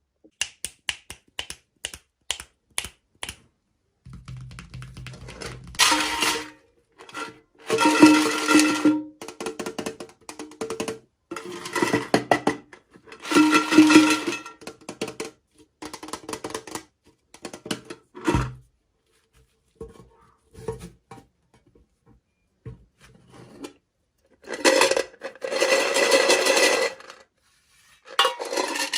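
Small plastic toy packaging and miniature pieces being handled. A quick run of light clicks and taps comes first, then repeated bursts of rattling and crinkling, each lasting a second or two with short pauses between.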